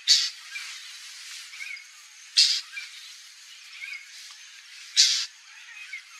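White-banded mockingbird giving three harsh, rasping calls about two and a half seconds apart, with faint short chirps between them.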